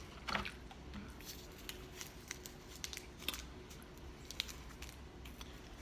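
Chewing of crunchy fried chicken tenders: faint, irregular crunches and mouth clicks.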